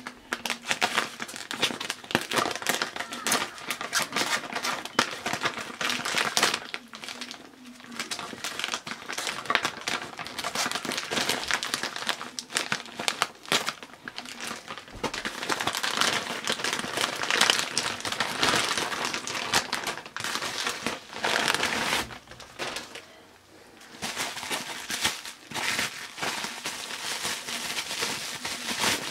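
Plastic wrapping and bubble wrap crinkling as they are cut and pulled open, on and off with a few short pauses.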